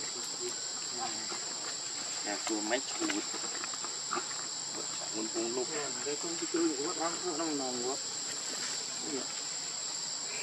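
Steady high-pitched insect drone, with indistinct voices rising and falling now and then, most around the middle.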